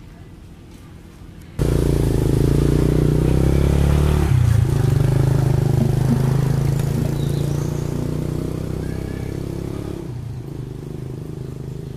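An engine running close by that starts suddenly about a second and a half in. Its low, steady tone shifts in pitch near four seconds, then slowly fades.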